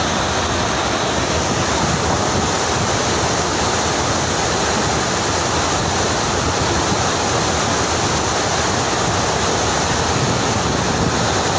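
Steady, loud rush of water pouring through open reservoir floodgates.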